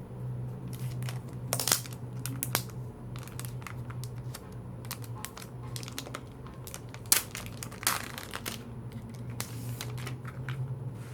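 Photocard packaging being handled: irregular crinkling and rustling with sharp clicks, the loudest snaps about two seconds and seven seconds in. A steady low hum runs underneath.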